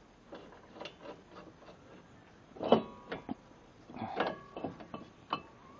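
Metal parts and tools clinking and knocking as a brake rotor is being fitted back onto the hub: a string of small clicks, with two louder knocks about three and four seconds in that ring briefly like struck steel.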